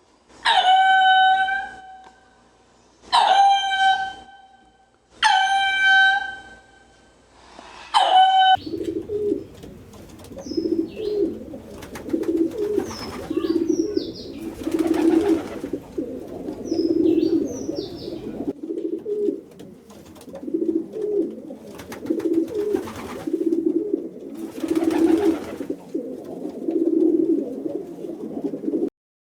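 An animal gives four loud, drawn-out calls about two seconds apart, then pigeons coo over and over in a steady rhythm, with a few short high bird chirps mixed in.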